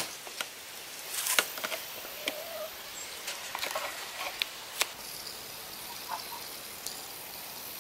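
Faint rustling with scattered light crackles, as dry fallen leaves and pine straw are disturbed underfoot.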